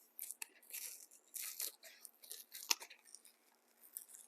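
Cake-mix packaging being torn open by hand: a run of faint rustling, crinkling tears, with one sharp snap about two-thirds of the way through.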